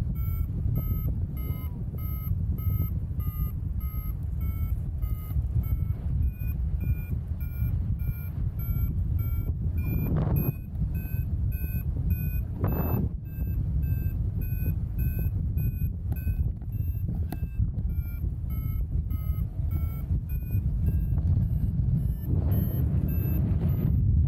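Paragliding variometer beeping about twice a second, its pitch drifting a little up and down: the climb tone that shows the glider is going up in lift. Heavy wind noise on the microphone underneath, with a few louder gusts.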